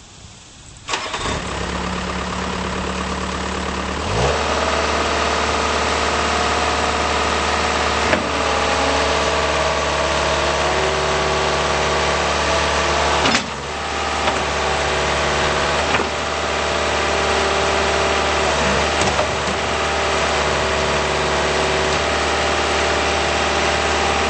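Bobcat T190 skid steer's diesel engine cranking and catching about a second in, then running at idle. Around four seconds in the engine speed rises, and it runs on steadily at the higher speed with a few sharp clicks or knocks.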